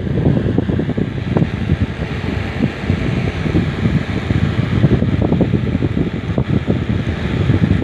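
Steady rushing of a fan, with air buffeting the microphone in an uneven low rumble.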